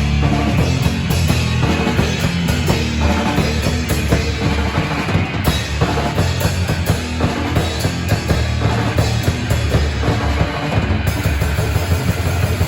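A death metal band playing loud and dense: drum kit with heavy bass drum under distorted guitars, all coming in together at once.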